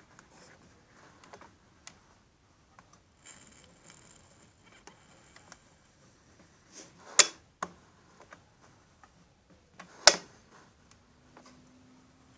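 Scattered light mechanical clicks and handling noise as a chainsaw's two-stroke engine is turned over slowly by hand, with two sharp clicks, one about seven seconds in and one about ten seconds in.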